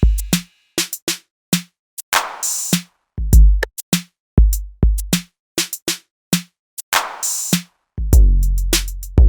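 Electronic beat music: a drum-machine pattern of kick drums and sharp snare and hi-hat hits, with a deep sustained bass coming in about eight seconds in.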